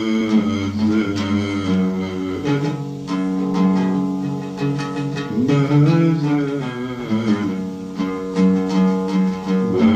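Oud being plucked in a slow melodic line, with a man's voice singing or humming the tune along with it, its pitch gliding up and down around the notes.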